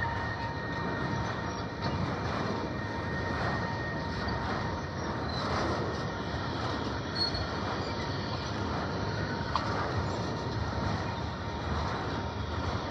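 Freight train of enclosed autorack cars rolling past: a steady rumble and clatter of steel wheels on rail. A thin, high, steady wheel squeal sounds over it and fades out within the first few seconds.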